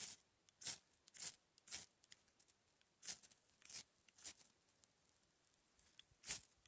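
A ferrocerium rod struck with a steel scraper to throw sparks onto fatwood tinder: about seven short, sharp scrapes, four in quick succession, then three more spaced wider with a pause before the last.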